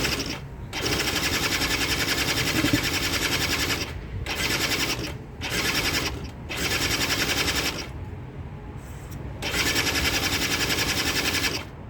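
Quad (ATV) engine being cranked over in about five separate bursts, each a second to three seconds long, without catching. It won't start after sitting too long, which the owner takes for a carburetor that needs cleaning.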